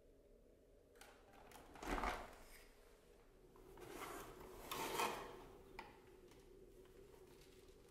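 Cardboard box handled on a wooden floor: a dull knock about two seconds in, then the box's flap lid scraping and rustling as it is opened, with a small click near the end.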